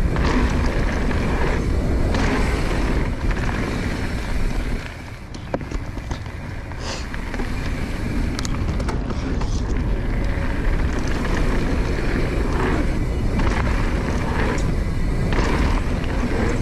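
Wind buffeting the camera microphone and mountain bike tyres rolling over packed dirt as the bike rides a jump line, with a brief quieter stretch about five seconds in and a few sharp clicks.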